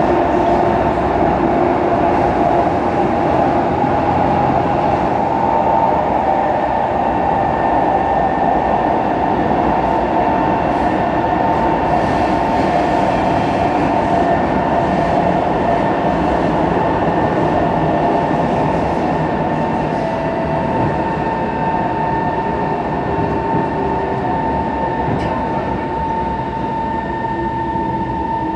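SMRT C151 (Kawasaki Heavy Industries) metro train running, heard from inside the car: a continuous rumble of wheels on track with a steady whine from the traction motors, easing slightly in loudness after about twenty seconds.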